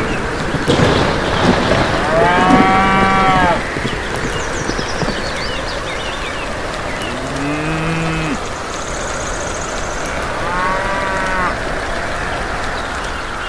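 Cattle mooing three times, a lower-pitched moo in the middle, over a steady hiss of rain.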